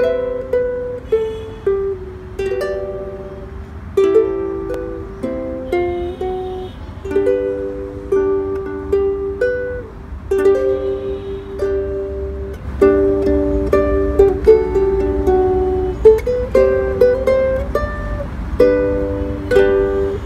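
Smiger K6S-24 concert ukulele with a solid koa top and koa back and sides, fingerpicked: a melody of plucked notes mixed with chords, each note ringing briefly before the next.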